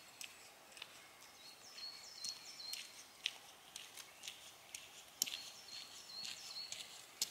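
A songbird singing faintly: two phrases of short high whistled notes, each note sliding down and then held, about a second and a half in and again about five seconds in. Scattered light ticks and clicks run underneath.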